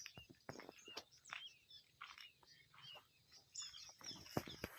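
Faint chirping of small birds: many short, high calls, some gliding up or down, mixed with scattered light clicks.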